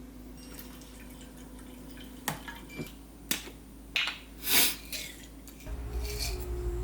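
A few sharp clicks and knocks of small household things being handled, with a brief rush of water a little after the middle, over a faint steady hum. Soft background music comes in near the end.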